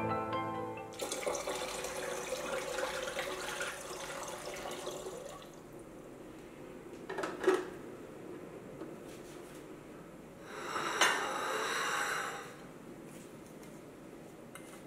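Water being poured into the top water reservoir of a Gaggia Classic Pro espresso machine, fading out after about four seconds. Then a single sharp clack, and a second short burst of noise with a click a few seconds later.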